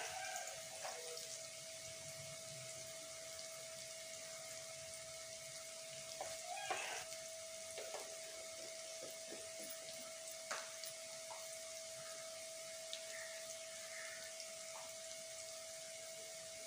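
Sliced onions frying in hot oil in a kadai: a steady sizzle with a few small crackles and clicks.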